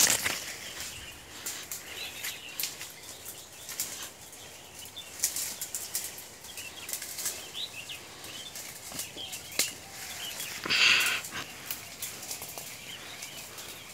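Leaves and branches rustling and dry twigs crackling as people push on foot through dense dry scrub, with a louder rustle near the end.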